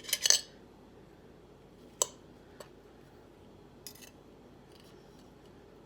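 Cutlery on a plate: a short, loud scrape at the start, a sharp clink about two seconds in, then a faint click and a brief scrape, as a bite of the turkey burger is cut for tasting.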